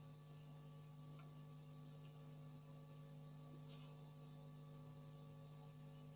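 Near silence: a steady low electrical hum, with a couple of faint small ticks.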